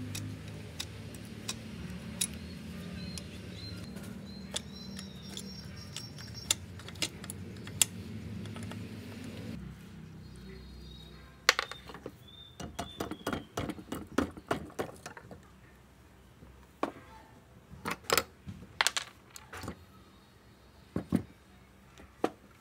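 A steady low machine hum with light clicks over it stops about ten seconds in. After that, small metal parts or tools clink and knock in irregular clusters.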